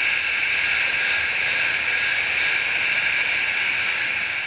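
A steady, high-pitched hiss that begins to fade near the end.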